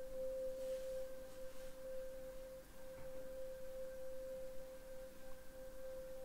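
A quiet, steady single pitched tone with faint higher overtones, held as a sustained drone in the film's background score.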